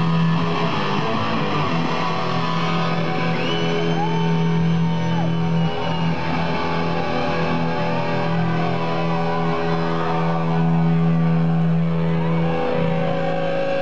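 Live punk rock band's amplified guitars holding a steady, ringing drone that stops near the end, with crowd shouts over it.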